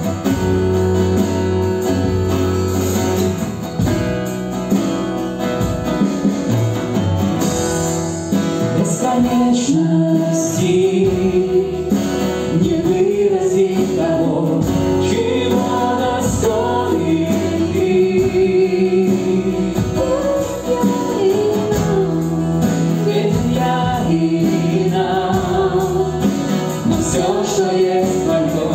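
Live worship band playing a song: strummed acoustic guitar with drums and electric guitars, and voices singing the melody from about eight seconds in.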